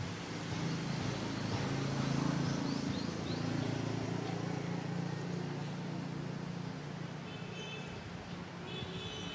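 A motor vehicle's engine hum swells and then slowly fades as it passes, with a few short bird chirps over it.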